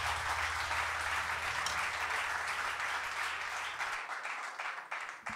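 Audience applauding, the clapping thinning out into scattered single claps near the end. A steady low hum from the stage underneath stops about four seconds in.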